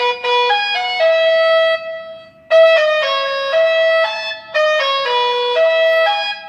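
Electronic basuri (telolet) horn playing a melody through a horn loudspeaker: a run of quick and held notes, with a short break about two seconds in.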